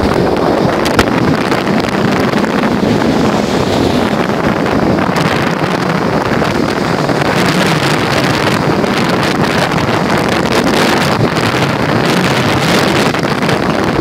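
Strong wind buffeting the microphone, with stormy sea surf breaking on the shore underneath: a loud, steady rush of noise.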